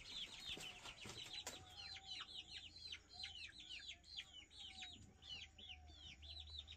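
Young chickens peeping over and over: a faint, quick string of short, high, falling peeps, several a second.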